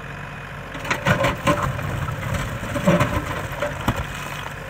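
JCB 3DX backhoe loader's diesel engine running while its backhoe bucket digs into stony ground. From about a second in, rocks and earth scrape and clatter against the steel bucket with a run of sharp knocks and crunches over the engine.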